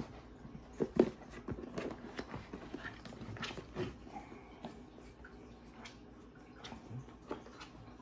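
Clicks, knocks and creaks of plastic as the collapsible tub of a folding portable washing machine is gripped and pulled at by hand, with two louder knocks about a second in.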